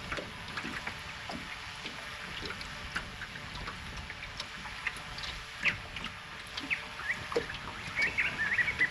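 Faint outdoor background with scattered small ticks and chirps. Near the end, a bird gives a run of quick, rising chirps.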